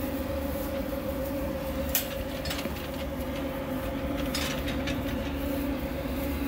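A steady mechanical hum made of several fixed tones, with a short metallic clank about two seconds in and another near the middle.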